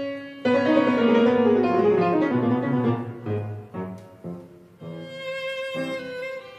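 Instrumental background music: a slow melody of held notes on violin with piano.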